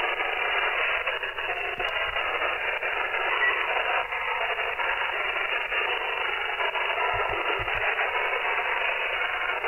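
Shortwave receiver hiss from a web SDR tuned in upper sideband on the 27 MHz CB band: a steady band of static squeezed into the narrow sideband passband.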